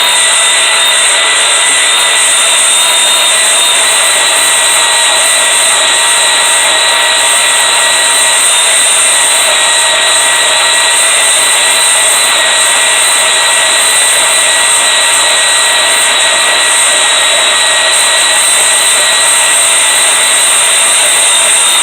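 Power saw cutting 1-inch steel flat bar, running with a loud, steady high whine. Its blade is missing some teeth, so the cut goes slowly.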